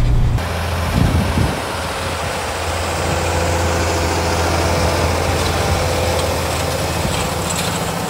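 Tractor engine running steadily while it pulls a seeder with spring-tine harrows sowing cover crop seed. The background changes about half a second in, and the sound is briefly louder around a second in.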